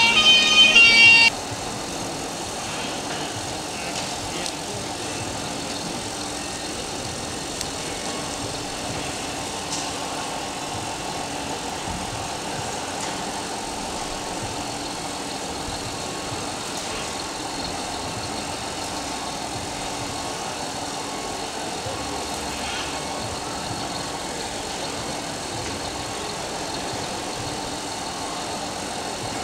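Music that cuts off suddenly about a second in, then a steady background of hall noise with a faint, even hum.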